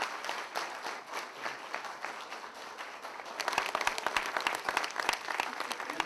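Audience applauding, a dense patter of many hands clapping that grows louder a little over halfway through.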